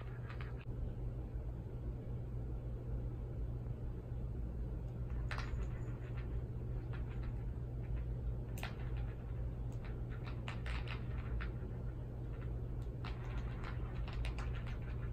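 Scattered light clicks, taps and scratches as a kitten bats, claws and kicks at a red hollow rubber lattice ball on a rug, in small flurries toward the second half, over a steady low hum.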